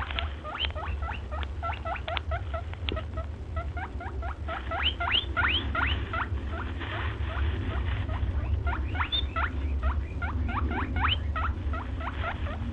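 Guinea pig wheeking: runs of short squeals that rise steeply in pitch, several a second, with a couple of brief lulls. A steady low hum runs underneath.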